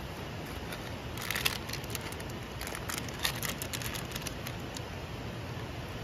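Steady rush of a stream flowing over rocks. Two short runs of crinkling crackles, about a second and a half in and again around three seconds, stand out over the water.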